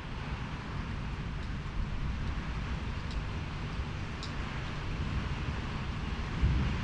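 Storm wind blowing against the microphone: a low buffeting rumble under a steady hissing rush, with a stronger gust near the end.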